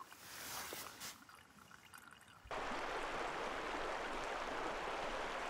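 Faint trickling and gurgling from a hanging gravity water filter. About two and a half seconds in, it cuts suddenly to the steady rush of a stream.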